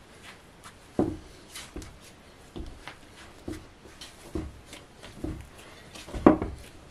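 Silicone spatula stirring and folding a stiff, shaggy bread dough in a glass bowl: a dull thump or squelch about once a second, the loudest near the end.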